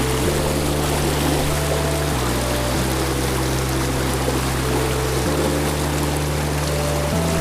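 Background music with held bass chords that change every couple of seconds and a few melody notes above them, over the steady rush of a river.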